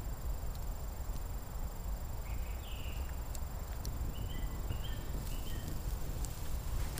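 Pine wood campfire crackling with scattered sharp pops over a steady low rumble, with a few short high chirps near the middle.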